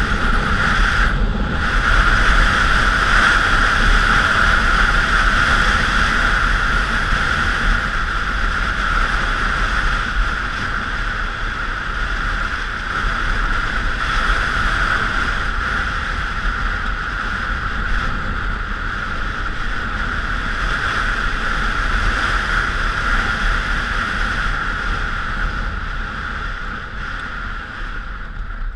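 1999 Honda Africa Twin's 750 cc V-twin engine running steadily while the bike is ridden, mixed with wind rushing over the helmet or bike-mounted camera's microphone. The sound eases off a little near the end.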